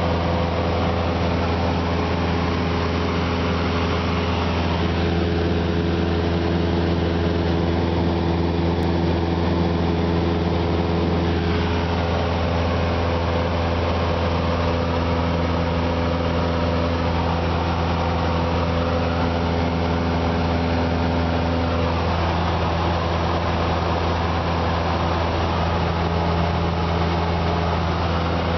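Cessna 172's piston engine and propeller in cruise flight, a steady drone heard from inside the cabin, with a strong low hum and a few steady tones above it.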